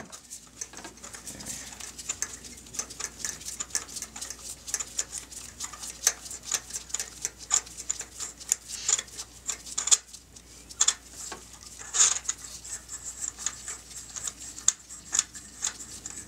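3/8-inch ratchet clicking in quick, irregular runs as it turns a spark plug socket and extension to unscrew a spark plug.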